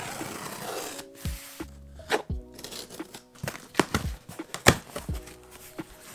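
Scissors slitting the packing tape on a cardboard box and the cardboard being handled: a rasping scrape in the first second, then a run of sharp clicks and scrapes. Background music plays underneath.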